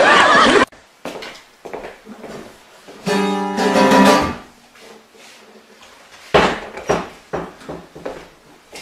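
A loud burst of voices cuts off sharply in the first second. Then an acoustic guitar is strummed once, its chord ringing for about a second, followed a couple of seconds later by a few sharp knocks and thumps.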